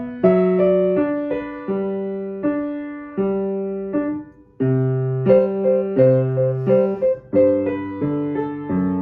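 Background piano music: a slow melody of struck notes, each fading away, with a lower bass line joining about halfway through.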